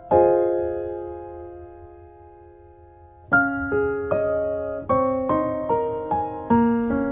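Background piano music: a chord struck at the start rings and fades away over about three seconds, then a melody of single notes follows at roughly two to three notes a second.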